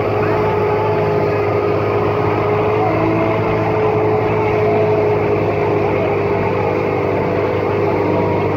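Motorboat engine running at a steady speed, with voices under it.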